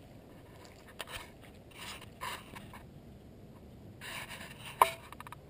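A few brief scrapes and rustles over a low background hiss, with a sharp click near the end.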